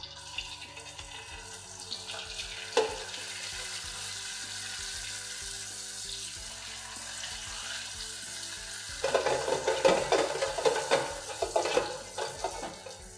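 Rice paper strips deep-frying in hot oil in an electric deep fryer: a steady sizzling hiss that turns louder and crackly about nine seconds in.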